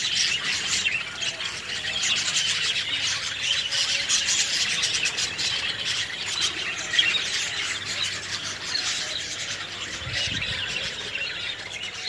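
A large mixed roost of egrets and cormorants calling at once: a dense, continuous chatter of many overlapping squawks and squeals.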